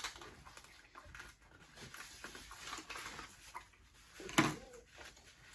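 Food packaging being handled: soft rustling and small crackles, with one louder crackle about four and a half seconds in.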